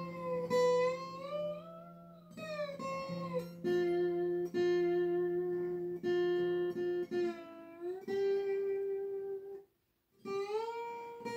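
Acoustic guitar played flat across the lap in Hawaiian slide style: a slow melody of sustained notes that glide smoothly up and down between pitches, over low strings left ringing underneath. The playing breaks off briefly near the end, then picks up again.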